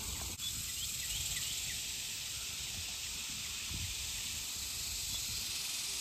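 Steady hiss of rushing water, with a few faint short chirps over it.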